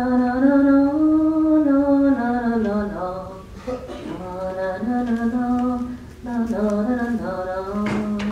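A woman's solo voice singing unaccompanied, in slow, long held notes that waver and bend in pitch, in three phrases with short breaks about three and six seconds in. It is the film's end-credits song, heard through the screening room's speakers.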